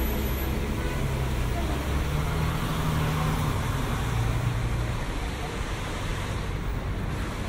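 City street traffic in the rain: vehicle engines running over a steady hiss of rain and tyres on wet road.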